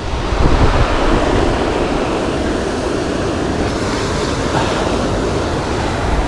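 Steady rushing noise of wind blowing over the microphone, even and unbroken.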